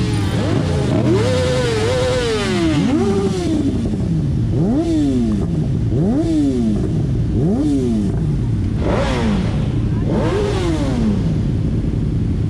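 A vehicle engine revved over and over, the pitch shooting up and sinking back about every one and a half seconds, with engines idling underneath.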